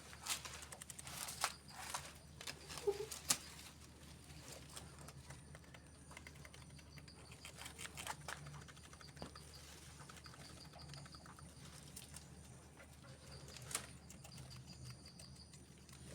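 Grasscutters (cane rats) moving about their pen: scattered taps, scratches and rustling, busiest in the first few seconds with a sharp tap near the end, over a low steady hum.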